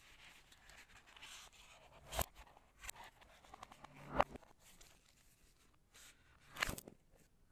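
Hands handling the watch and its packaging: light rustling, then a few sharp clicks and taps, the loudest a little after four seconds.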